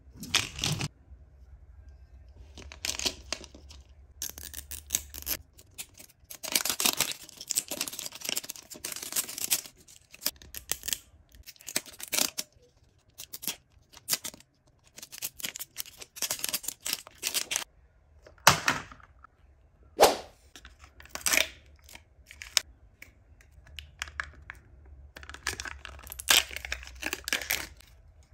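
Close tearing and crinkling of thin plastic wrap and paper packaging being peeled off a plastic toy capsule ball, in irregular bursts. A few sharp clicks come past the middle.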